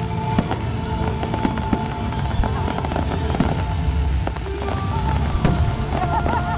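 Fireworks display: a rapid, irregular string of bangs and crackles, over music.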